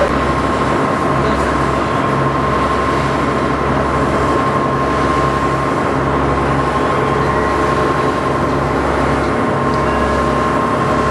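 Sightseeing boat's engine running steadily under way, heard on board: a continuous low drone that swells and eases every couple of seconds, with a steady whine over it.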